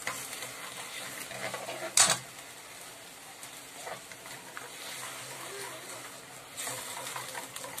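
Metal ladle stirring a soy-based sauce in a metal wok over a faint sizzle, with scrapes and light knocks on the pan. The loudest sound is one sharp clank of the ladle against the wok about two seconds in.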